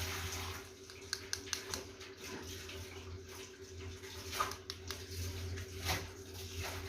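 Scattered light clicks and taps of small plastic makeup containers and tools being handled, over a steady low background hum.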